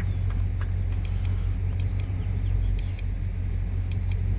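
1997 Suburban's engine idling with a steady low rumble, and four short high beeps about a second apart from a handheld scan tool as its buttons are pressed to scroll through live data.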